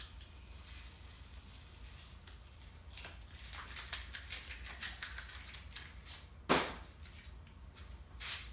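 Masking tape being peeled off freshly painted flames and crinkled into a wad by hand, a run of crackling from about three seconds in, then two short louder rasps, the first the loudest, the second near the end.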